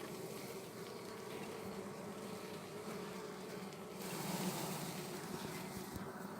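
Honeybees of an opened hive buzzing in a steady, low hum, with a soft hiss rising briefly from about four to six seconds in.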